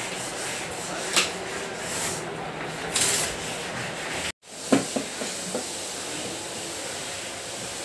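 A metal TV wall bracket and hand tools being handled: a few scattered clicks and knocks over a steady background hiss. The sound cuts out completely for a moment a little past halfway.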